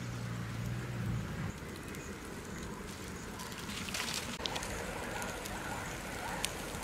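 Open fire of dry leaves crackling, with sharp pops scattered through it, stronger in the second half, as birds roast in the flames. A low steady hum stops about a second and a half in.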